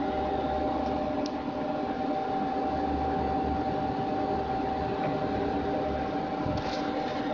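1985 Washino LE-19K engine lathe running, its spindle turning: a steady whine over a low hum.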